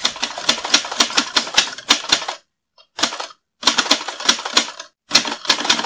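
Typewriter keys clacking in quick runs of strokes, about four runs broken by short pauses.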